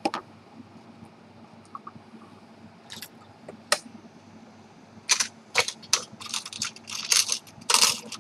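Small sharp clicks and light metallic clinks from small parts being handled at a watchmaker's bench. A few are spaced out at first, then a quick irregular cluster comes in the last three seconds.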